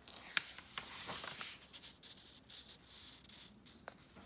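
A paper page of a picture book being turned by hand: soft rustling and rubbing of the paper, with a few sharp clicks as it is handled.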